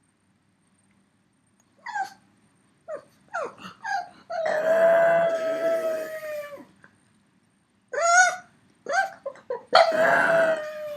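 A pug howling and whining: short whines starting about two seconds in, then a long held howl, more short cries, and a second long howl near the end. He is calling for a companion dog that has gone out without him.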